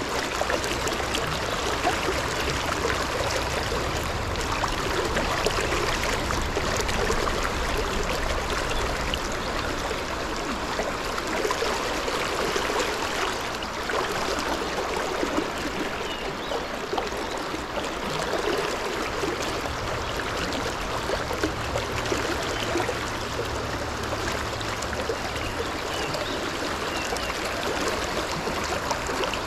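A fast, rocky mountain stream rushing steadily.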